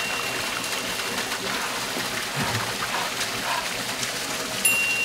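Waterfall rushing into its basin: a steady wash of falling water. A thin, high steady tone sounds over it for the first second and a half and comes back near the end.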